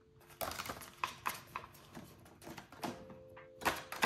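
Polymer banknotes, a card cash tracker and plastic binder envelopes being handled: irregular crinkling, rustling and light taps.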